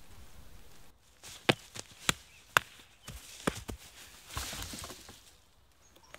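Dry leaves and twigs on a forest floor crackling under movement: about five sharp snaps over two seconds, then a short rustle.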